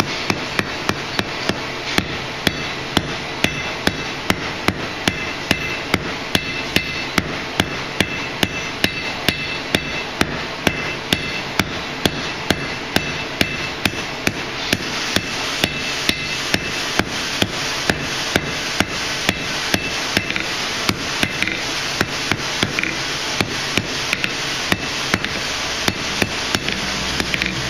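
Hand hammer striking red-hot steel on an anvil in a steady rhythm of about two to three blows a second, blending down and tacking a forge-welded scarf on a tong rein while it is still at welding heat. A steady rushing noise runs underneath.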